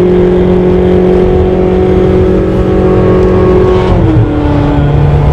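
Sports car's engine heard from inside the cabin while driving, a loud steady drone at speed. About four seconds in its pitch steps down and settles lower.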